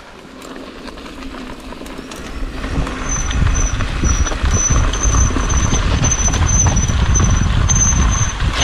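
Mountain bike riding down a rough trail: wind on the microphone and tyre rumble grow louder as speed builds from about two and a half seconds in. From about three seconds in, a high squeal comes and goes in short stretches, typical of disc brakes being dragged on a descent.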